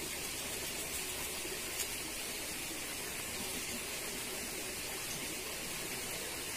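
Steady rushing of a small river flowing, with one faint tick about two seconds in.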